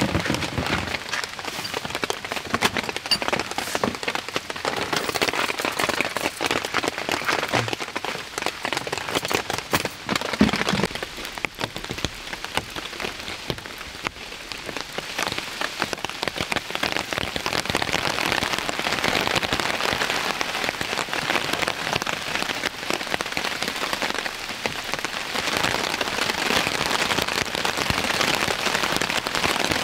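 Steady rain falling, its drops ticking densely on surfaces around the campsite. It eases off somewhat before the middle and grows heavier again a few seconds later.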